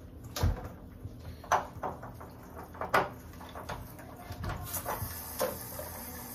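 Metal clicks and clanks from a ratchet and large socket turning out an electric water heater's heating element. The clicks come singly, with a quicker run of small ticks about four and a half seconds in.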